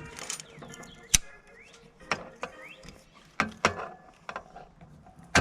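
Sharp metallic clicks and clinks of hand tools working on wire connectors, the loudest about a second in and several more after, as the wires are crimped together.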